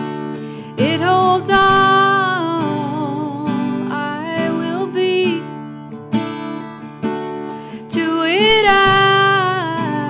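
Acoustic guitar strummed and picked, with a woman singing long, wavering held notes over it, one line starting about a second in and another near the end.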